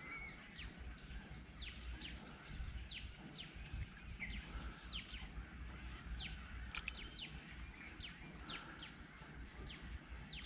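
Birds calling: many short, high chirps, each a quick downward sweep, scattered irregularly over a low steady rumble.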